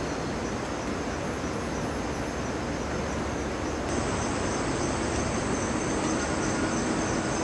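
Crickets chirring in a steady high trill over a steady rushing hiss, with a faint low hum joining about four seconds in.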